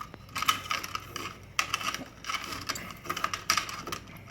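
Electrical wires and cable being worked into a metal handy box, making irregular metallic clicks, scrapes and rattles.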